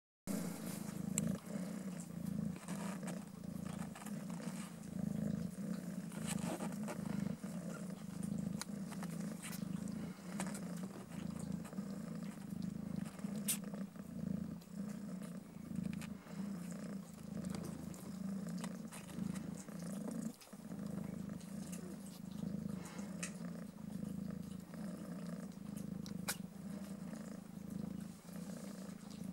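A domestic mother cat purring continuously, a low steady purr while she lies nursing her kittens.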